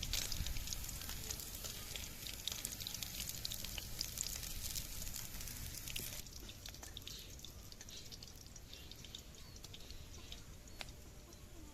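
Food frying in a pan: a sizzle with many scattered crackles and pops that slowly dies down.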